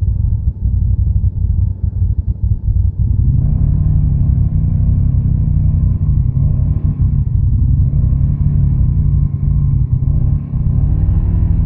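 ATV engine running low, then revved hard from about three seconds in and held at high revs, wavering up and down as it works under load through a mud hole.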